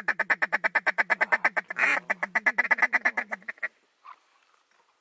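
Mallard duck call blown in a rapid, even chatter of about ten short quacking notes a second: a feeding chuckle to draw a passing flock of mallards. One louder, harsher note comes near the two-second mark, and the chatter stops a little over halfway through.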